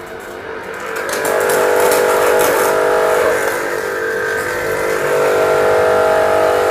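GP-3000 electric high-pressure washer running, its motor and pump giving a steady hum while a fine jet of water hisses from the spray lance nozzle. The sound comes up about a second in as the trigger is held.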